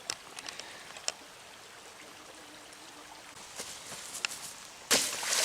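Small mountain stream running steadily, with a few light clicks in the first second. About five seconds in, a sudden loud burst of noise cuts in and keeps going.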